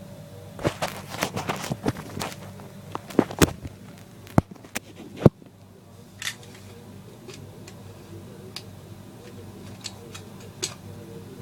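Hands handling and unwrapping packaging: a quick run of clicks, taps and knocks for about the first five seconds, the sharpest near the middle, then only a few scattered clicks.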